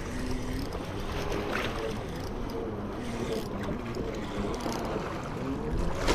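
Steady wind buffeting the microphone, with small waves lapping at a rocky shoreline.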